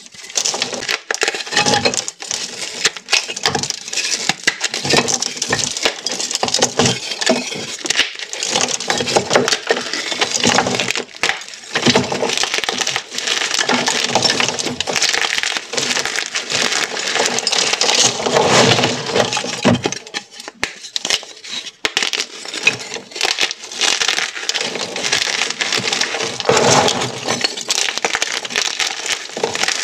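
Blocks of dyed gym chalk crushed and crumbled between bare hands: dense, irregular crunching and crackling as the blocks break into chunks and grind down to powder, with a short lull a little past two-thirds through.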